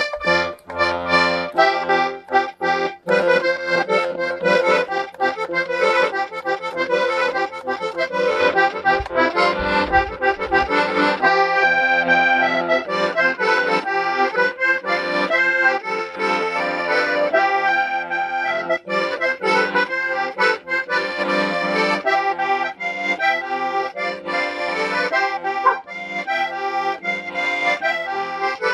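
Small diatonic button accordion playing a melody over held chords, the notes changing quickly and continuously.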